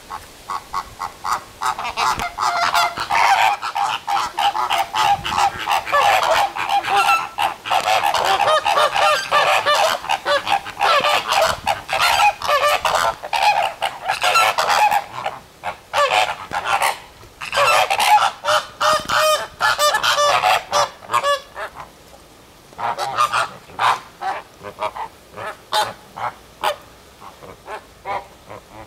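A flock of flamingos calling together: a dense chorus of rapid, harsh "gah! gah!" honks that thins to scattered single calls in the last several seconds.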